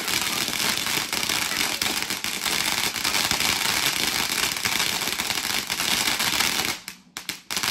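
Fireworks going off in a dense, continuous crackle of many small pops, breaking up and cutting out near the end.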